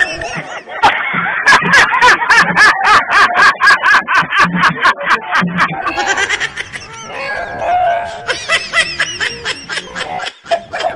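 Laughter and music, with a fast ticking beat of about five strokes a second through the middle.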